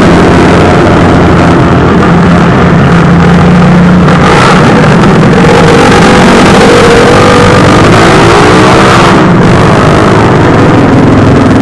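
A procession of motorcycles riding past one after another, their engines running loud and overlapping, rising and falling in pitch as each bike goes by, with two brief louder swells about four and nine seconds in.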